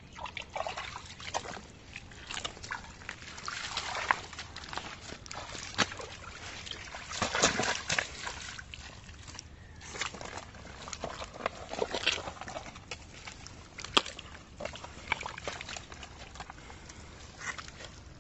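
Hands sloshing and squelching in shallow muddy pond water and wet mud, in irregular splashes, with one sharp click about three-quarters of the way in.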